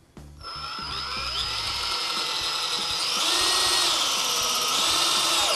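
Cordless drill/driver driving a GRK R4 self-countersinking screw into black ash hardwood, without a pilot hole. The motor runs with a steady whine that grows louder as the screw bites in, steps up in pitch about three seconds in, and stops abruptly at the end.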